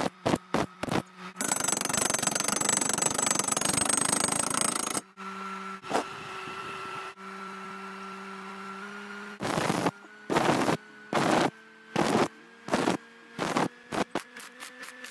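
Stick-welding arc on steel tube: short stuttering bursts of arc crackle, then a continuous crackling run of about three and a half seconds. A steady hum follows, and then more short crackling bursts, each about half a second long.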